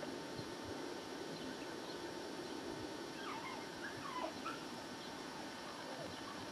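A dog whining in a few short, high, wavering whimpers about three to four and a half seconds in, over a steady low background hiss.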